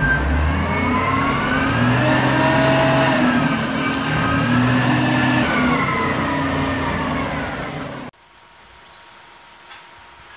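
Iveco truck engine running and revving up and down, its pitch rising and falling. About eight seconds in it cuts off suddenly to the quieter steady hum of an air-conditioner outdoor unit's fan.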